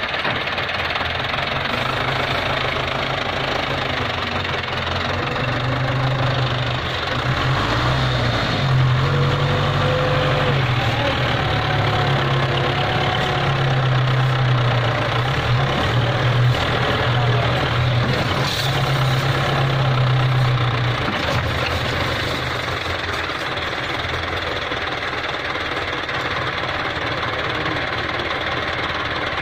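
Belarus 510 tractor's diesel engine working under load as it climbs a steep dirt slope. It grows louder and strains harder from about six seconds in, then eases back after about twenty seconds.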